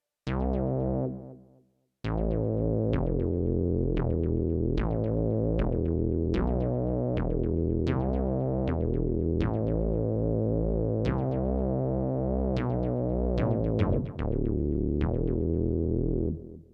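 Fred's Lab Manatee synthesizer playing a preset: a short note, a brief pause, then a run of held chords over a deep bass. Each new note starts with a bright, plucky attack that quickly dulls, and the playing stops just before the end.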